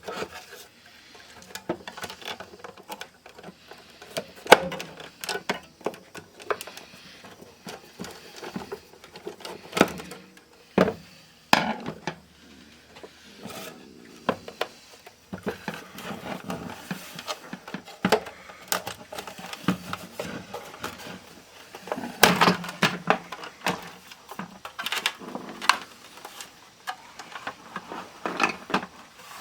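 Irregular clicks, taps and light knocks with some scraping, as of hands handling small hard parts and tools; a denser cluster of knocks comes about two-thirds of the way through.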